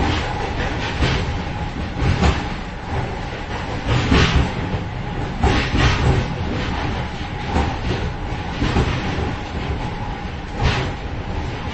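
A moving train heard from inside the vestibule between two carriages: a steady low rumble of the running train, with irregular metallic rattling and knocks, the loudest about four seconds in, around six seconds and near the end, over a faint steady whine.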